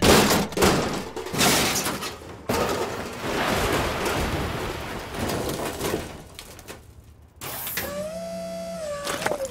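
Cartoon crash-landing sound effects for a spaceship hitting the snow: a sudden impact, more hits, then a long noisy crashing and sliding rumble that dies away. Near the end come a short whoosh and a held, wavering tone.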